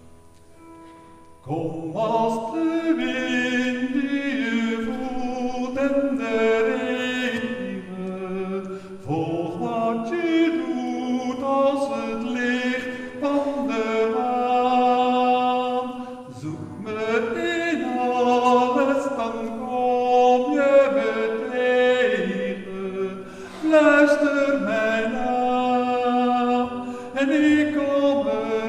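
A man singing a song solo, in long held phrases, starting about a second and a half in.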